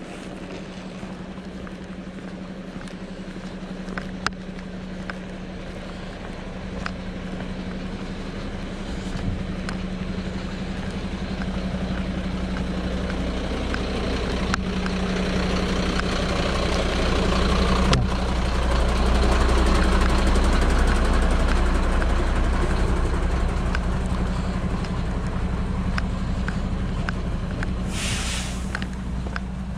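Diesel engine of a Mercedes tow truck idling, a steady low hum that grows louder as it is approached and fades as it is passed, with a short hiss near the end. Light clicks of walking poles and footsteps on stone paving run through it.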